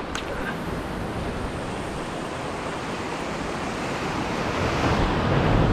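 Sea waves washing over a rocky shore, swelling louder near the end, with a single short click at the very start.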